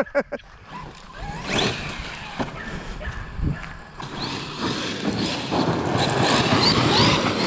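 Electric RC monster truck running on a gravel road: motor whine swelling with the throttle over tyre noise on the gravel, getting louder in the second half with a few short rising whines.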